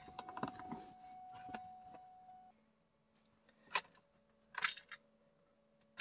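Faint clicks, then two short metallic jingles a little under a second apart, over a faint steady tone that stops about two and a half seconds in.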